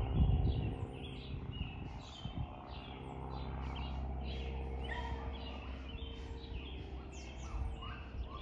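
Small birds chirping and twittering again and again, over a steady low rumble with a faint hum.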